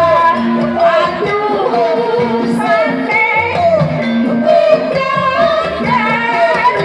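Singing over instrumental accompaniment, the melody wavering continuously, with a low held note recurring about every two seconds underneath.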